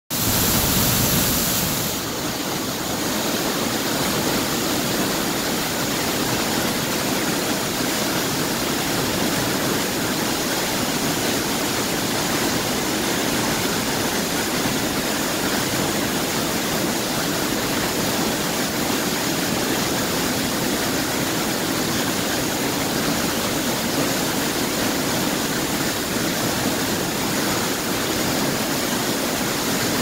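Heavy flow of water rushing and churning down a concrete dam spillway chute: a steady, loud rush of whitewater, a little louder in the first couple of seconds.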